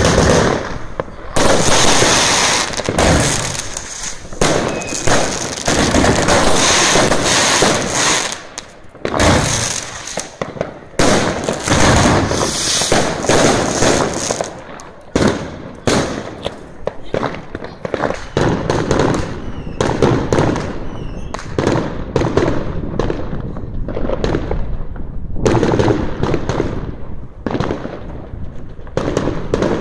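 Fireworks going off in rapid succession: a near-continuous run of bangs and crackling, with brief lulls about 9, 15 and 25 seconds in.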